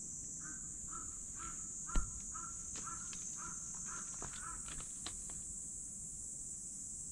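A crow cawing in a quick run of about ten short caws, roughly two a second, over a steady high insect drone. A single dull thump about two seconds in.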